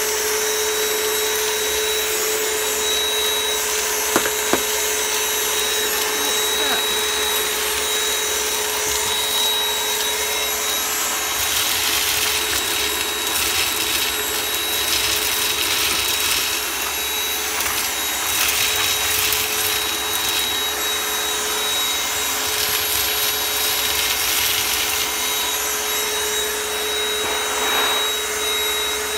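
Battery-powered vacuum cleaner running steadily with a high whine. From about a third of the way in come stretches of crackling and rattling as beans are sucked up.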